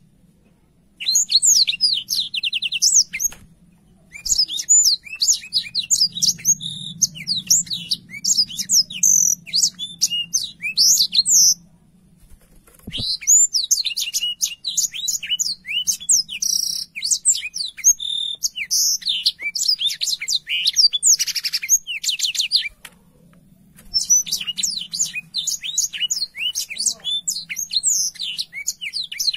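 Black-throated canary (blackthroat) singing a long, fast twittering song of rapid high chirps and trills, broken by a few short pauses.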